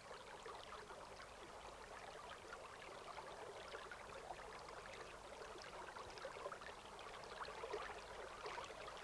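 Faint trickling, bubbling liquid sound with a fine crackle, growing a little louder toward the end.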